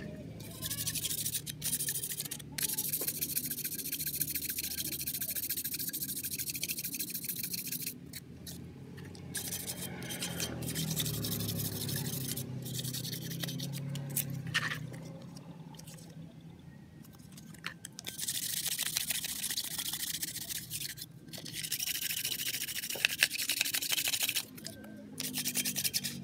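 Fine sandpaper rubbed by hand over the gasket face of a motor-scooter cylinder block, a dry scratchy rasp in long stretches of strokes with short pauses between them.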